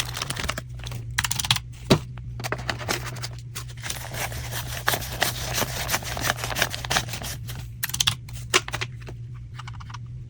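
Paper banknotes being counted by hand: quick, crisp rustling and flicking of bills, with a few sharper snaps, over a steady low hum.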